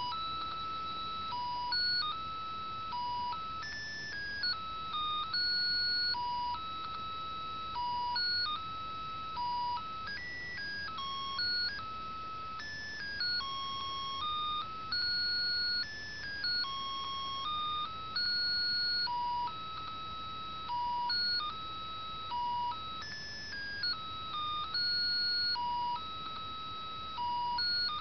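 Sound chip in a Mickey Mouse plush toy playing an electronic melody, set off by a press on its foot. The tune goes one note at a time, each note held steady, and runs on without a pause.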